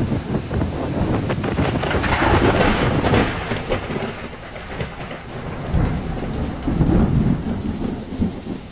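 Storm wind and heavy rain, the wind buffeting the microphone with a deep rumble; gusts swell a couple of seconds in and again near the end, then ease off.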